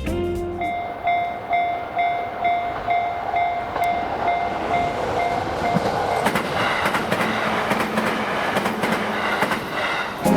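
Japanese level-crossing warning bell ringing in a steady repeating 'kan-kan' beat, then a JR Nikko line train passing over the crossing from about six seconds in, its wheels clattering over the rail joints.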